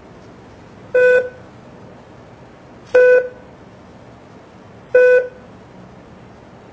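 Three short electronic beeps from an iPhone clapperboard app, evenly spaced two seconds apart, over a steady faint hiss.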